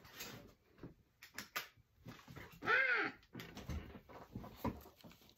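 Scattered clicks and rustles of small objects being handled. About two and a half seconds in comes one short call whose pitch rises and then falls; it is the loudest sound here.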